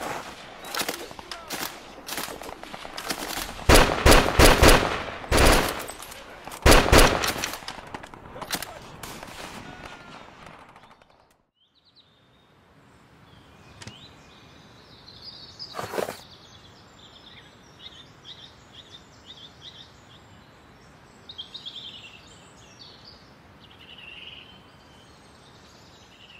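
Battle gunfire, many rifle and machine-gun shots, heaviest about four and seven seconds in, dies away after about eleven seconds. Then birds chirp over quiet outdoor ambience, broken once by a single sharp crack about sixteen seconds in.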